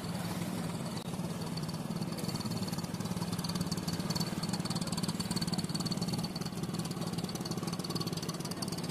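Inboard engine of a wooden fishing boat running steadily as the boat motors past, with a fast, even rhythm.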